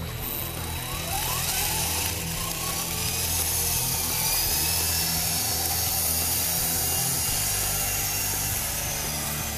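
Electric motor whine of an Esky Honey Bee V2 RC helicopter spinning up, rising in pitch a little after a second in and then holding a high, steady whine as it lifts off the water.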